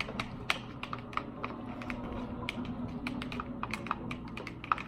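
Sticky slime, with laundry detergent stirred in, making irregular wet clicking and popping sounds, several a second, as it is stirred and worked.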